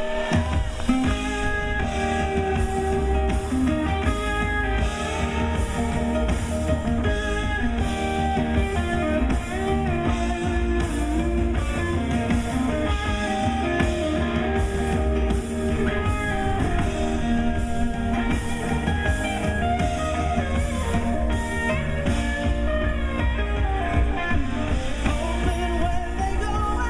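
Live band playing a rock-soul song: electric guitars over bass and drums with a steady beat.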